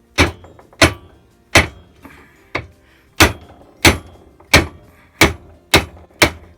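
About ten steady hammer blows, evenly paced, knocking a ball bearing off a wood lathe's headstock shaft, with the bearing resting on the vise jaws; the bearing is starting to move.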